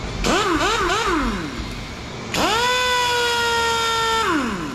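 Handheld pneumatic air tool run twice on compressed air, a whine with air hiss. First a short burst whose pitch wavers up and down and then falls away; then it spins up, holds a steady pitch for about two seconds and winds down near the end.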